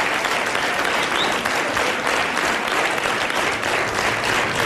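Studio audience applauding, a steady dense clapping with no let-up.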